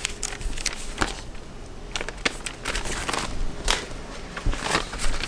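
Rustling, crinkling and scattered light knocks and clicks of junk and debris being handled and pulled out of a car by hand.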